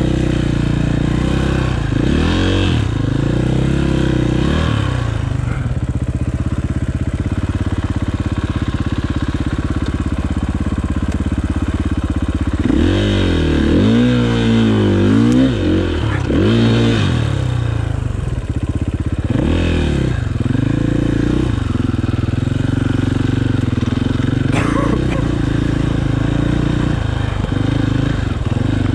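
Enduro motorcycle engine running at low, steady revs, with repeated blips of the throttle that rise and fall in pitch, a cluster of them around the middle. A single sharp click comes a few seconds before the end.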